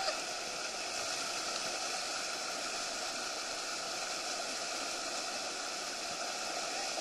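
Steady rush of white water churning below a river weir, heard close up from among the kayaks.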